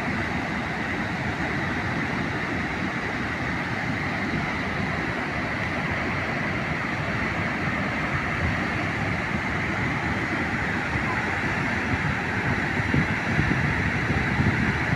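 Water crashing at a large dam, a loud, steady, dense rush that grows a little louder and more uneven near the end.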